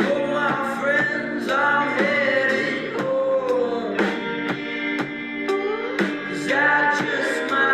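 Song with a voice singing over guitar, with a steady beat of light percussion hits.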